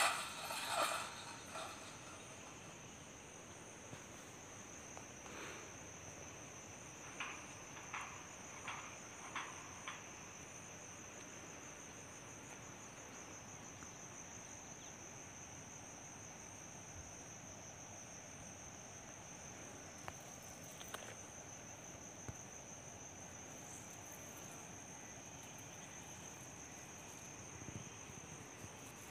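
Insects trilling in a steady, high-pitched, faintly pulsing chorus, with a few short clicks about five to ten seconds in.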